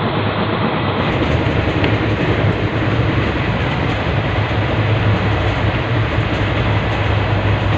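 Passenger train coach on the move: a steady, loud rumble of wheels on the track, with a low hum underneath.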